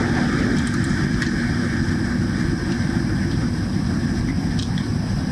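Steady low hum with hiss from powered lab equipment, with a few faint clicks of a computer mouse.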